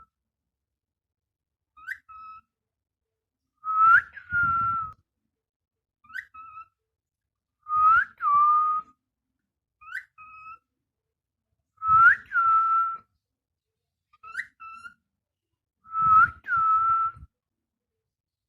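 A person whistling one short phrase over and over as a parrot-training call: a quick upward swoop followed by a steady note, about every two seconds. Softer short phrases alternate with louder ones whose held note lasts longer, with some breath noise on the microphone.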